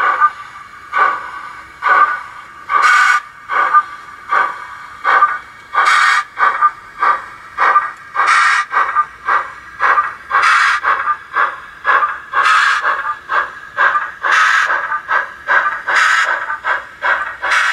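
Steam exhaust chuffs from the DCC sound decoder fitted in a Hornby OO-gauge Peckett W4 0-4-0ST saddle-tank model as it hauls a rake of wagons. The chuffs start at about one a second and quicken to about two a second, with a faint hiss between them.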